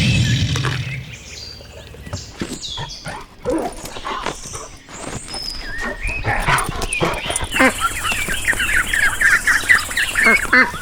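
A dog barking and yelping, with calls coming thick and fast over the last few seconds.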